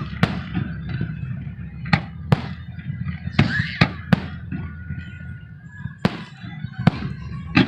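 Fireworks going off in a string of sharp bangs at irregular intervals, about eight in all, some close together, over a steady low rumble.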